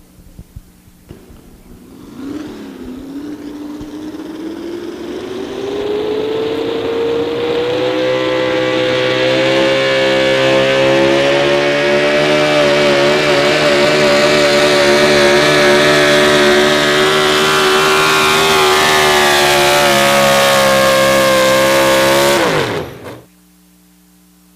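Pro Stock 4x4 Chevrolet pulling truck's engine on open exhaust stacks revving up over several seconds, then held at a steady high rev through the pull, which the driver puts at about 8,500 RPM. Near the end the engine drops off suddenly as the pull ends.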